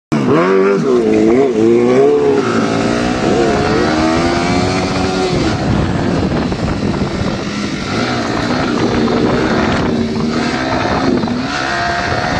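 Sport motorcycle engine revving as the bike rides: its pitch rises and falls quickly over the first couple of seconds, then runs steadier with smaller rises and dips, over a steady rush of road and wind noise.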